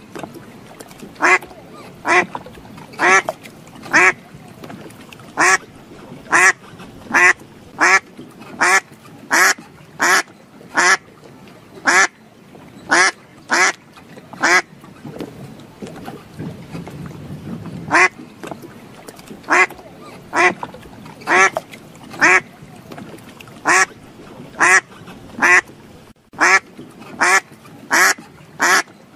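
A bird calls over and over. Each loud, short call comes about once a second, with a pause of a few seconds in the middle.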